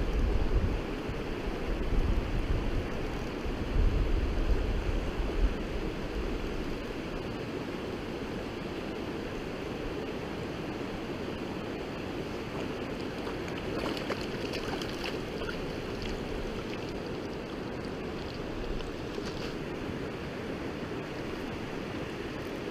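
Steady rush of a flowing mountain river, with low rumbling gusts on the microphone in the first few seconds and a few faint clicks about two-thirds of the way through.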